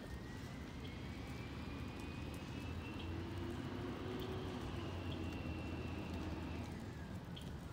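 A vehicle engine running out of sight, with a low rumble and a whine that climbs slowly, holds, then falls away near the end.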